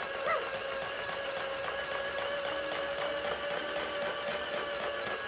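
Steady electronic tone held over a hiss, coming from the VTech Kosy plush puppy toy's speaker while it is run at 25 volts.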